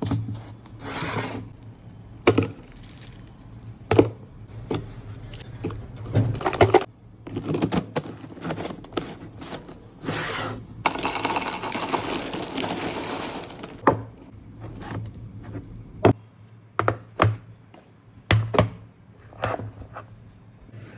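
Kitchen restocking sounds: small containers and items clicked, tapped and set down one after another, with a few longer hissing stretches, the longest about eleven to thirteen seconds in, over a low steady hum.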